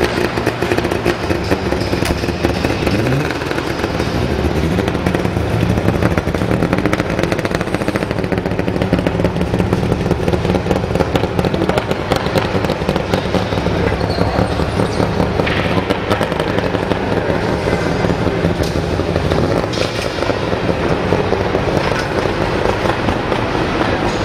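Saab 96 rally car's three-cylinder two-stroke engine running loud with a rapid crackle, revved with a rising pitch about three seconds in, then running on steadily as the car moves off.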